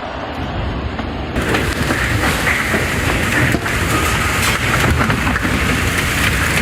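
Strong storm wind rushing and buffeting the microphone with a low rumble. About a second and a half in it turns abruptly louder and brighter.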